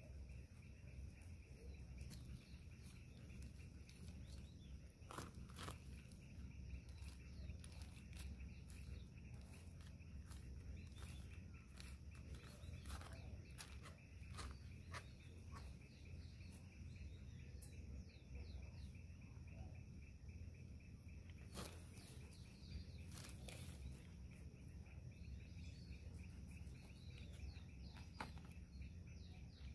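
Faint outdoor ambience of small birds chirping, with occasional soft taps and scrapes as hands press soil into a plastic plant pot around a rose.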